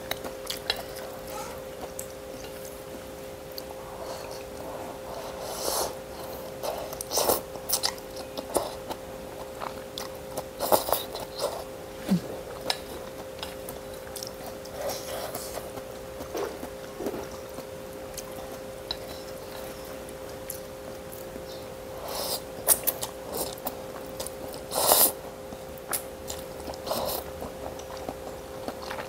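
A person eating noodle soup with chopsticks: chewing and slurping noodles in short, irregular bursts, over a steady low hum.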